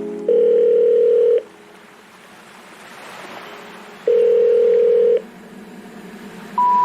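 Telephone ringback tone: two long steady beeps about four seconds apart. Near the end, a rising sequence of short tones begins, like the special information tone of a call that does not go through.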